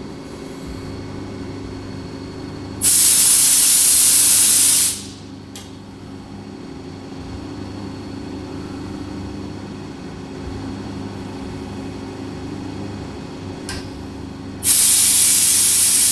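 Two loud two-second blasts of compressed air from a blow gun, clearing aluminum chips, about three seconds in and again near the end. Between them a CNC mill runs steadily, cutting aluminum with a 1/8-inch four-flute end mill.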